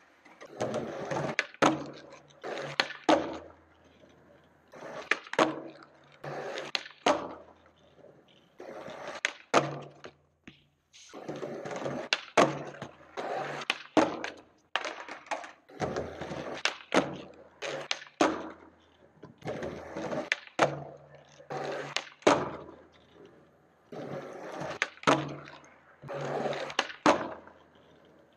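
Skateboard wheels rolling on a concrete floor, broken every second or two by sharp clacks of the tail popping and the board landing and slapping down as flatground tricks are tried again and again.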